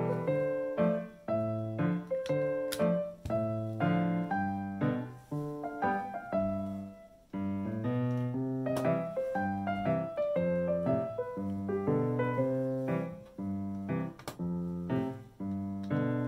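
Background piano music: a light, steadily paced tune of single notes over a repeating bass line.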